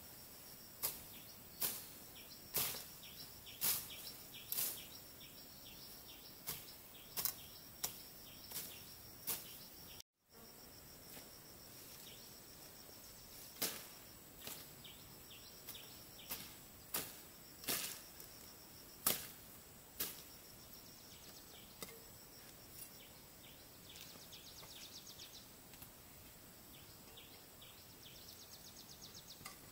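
Sharp knocks or clicks at irregular intervals, sometimes several a second, over a steady high hiss of insects. The sound cuts out completely for a moment about ten seconds in, and short rapid high trills come near the end.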